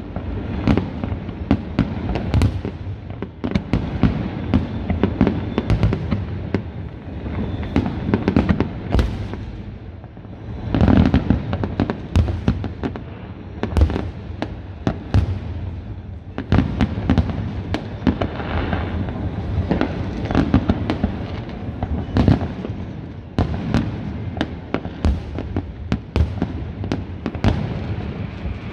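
Many fireworks going off at once: a dense, unbroken run of bangs and crackles from aerial shells bursting, with louder clusters of bangs every few seconds.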